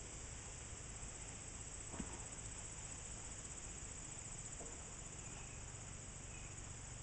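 Steady high-pitched trilling of crickets or similar insects in the surrounding woods, with a single light knock about two seconds in.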